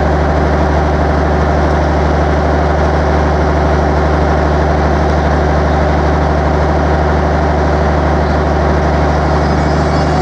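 Standing Talgo 9 passenger train humming steadily at the platform, with a strong deep drone under a broader, even hum.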